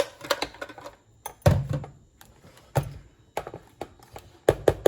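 Irregular knocks and clatter of kitchen utensils and bowls being handled and set down on a countertop, with one heavier thunk about a second and a half in and a quick run of knocks near the end.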